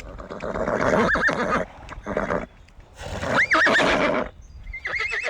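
Four loud animal calls in a row, each rough-voiced with a high pitch that quavers rapidly up and down.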